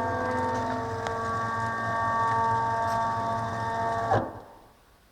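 Stepper motors of a homemade CNC router driving its axes, a steady whine of several held tones. It stops abruptly about four seconds in as the motion ends.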